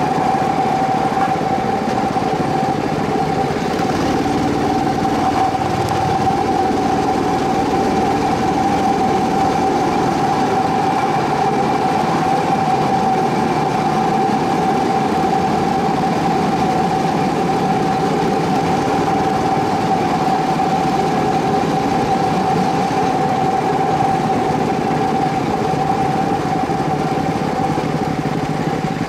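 Aluminium track-maintenance cart running along the rails, its small engine giving a steady drone with a constant whine on top.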